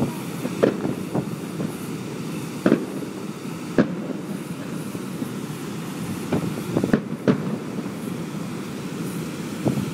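Fireworks going off: about nine sharp bangs at irregular intervals, a few close together, over a steady low rumble of background noise.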